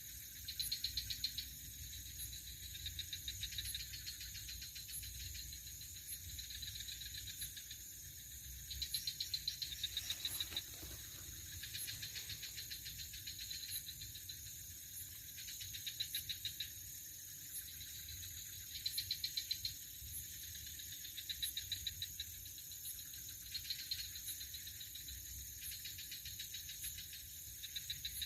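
Night insects chirring steadily, with louder bursts of rapid pulsing trills repeating every two to three seconds.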